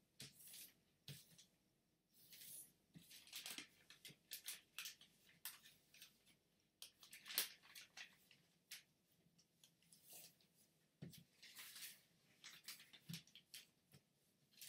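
A sheet of origami paper being folded and creased by hand: faint, irregular rustles and crinkles, with a sharper crackle about halfway through and a couple of soft thuds later on.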